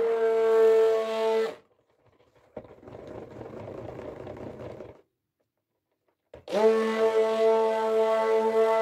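Electric immersion blender motor running with a steady whine while it churns dish soap and water, cutting off about a second and a half in. A quieter, rougher whirr follows. The blender starts up again with the same steady whine for the last couple of seconds.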